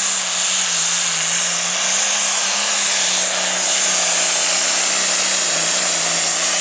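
1974 International hot farm pulling tractor's engine running flat out under load on a pull, its pitch held high and steady with a few brief dips and a strong hiss over it.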